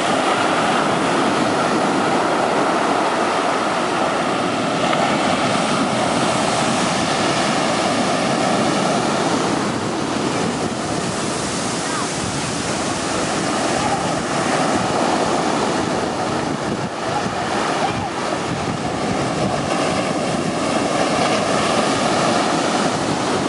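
Ocean waves and surf washing steadily, with wind buffeting the microphone.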